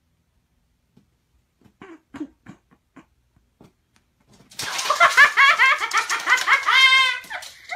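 A person bursts into loud, high-pitched laughter about halfway through, in quick repeated bursts, after a few short soft sounds.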